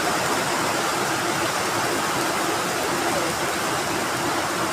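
Heavy rain falling steadily, an even rushing hiss of a downpour.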